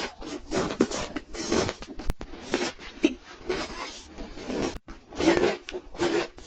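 Close-miked chewing of crunchy frozen pink ice, with irregular crunches about twice a second.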